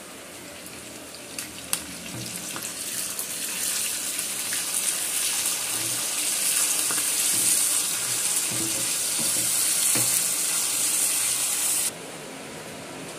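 Curry leaves, garlic, mustard seeds, cumin and dried red chillies sizzling in hot oil in a clay pot as a ladle stirs them. The sizzle swells over the first few seconds, stays loud, and cuts off abruptly near the end.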